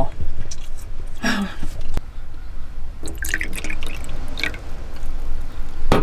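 Liquid dripping and trickling as rice wine is poured from a glass bottle into a cup, over a low steady rumble.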